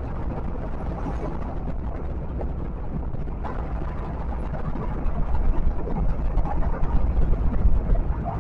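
Steady road and engine noise from a vehicle cruising on a highway, heaviest in the low end, growing louder and uneven from about five seconds in.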